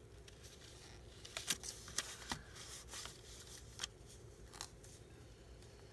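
Sticky notes and paper being handled on a desk: a cluster of light clicks and rustles about a second and a half in, the loudest around two seconds, and one more near the end.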